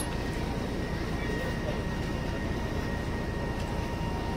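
Boat engine running steadily: a low rumble with a thin steady whine held over it.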